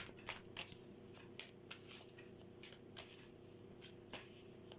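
Tarot cards being shuffled by hand: a faint run of short, irregular card flicks and slides, a few a second.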